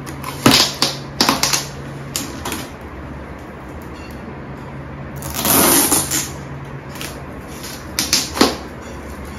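Sharp knocks and clatter from tools and parts being handled during an air-conditioner installation: a few in quick succession near the start and two more near the end. About a second of louder rustling or scraping comes midway, over a low steady hum.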